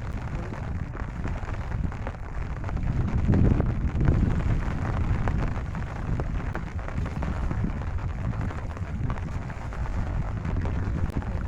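Rain falling steadily, a dense patter of many small drops over a deep, continuous rumble that swells a few seconds in.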